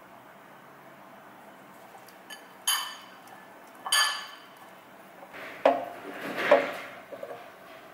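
A metal utensil clinks twice against a ceramic bowl as potato sticks are tossed in oil. The raw potato sticks then rattle and slide out of the bowl into an air fryer basket, with a couple of knocks.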